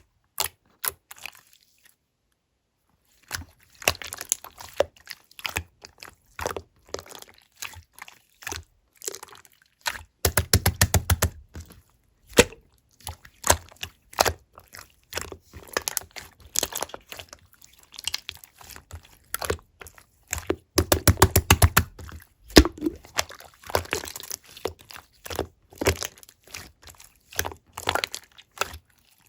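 Black marbled slime being squeezed and folded by hand, with sticky clicks and crackles as trapped air pops. Two spells of rapid clicking stand out, about ten and twenty-one seconds in.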